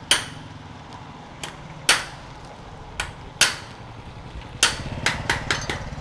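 Hammer blows: about ten sharp, separate strikes at an irregular pace, coming faster in quick succession near the end, over a steady low hum.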